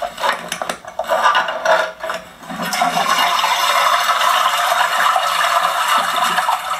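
Scraping and rattling as debris and rubbish are pulled out of the cavity under a bathroom floor. From about three seconds in, a steady rushing noise takes over.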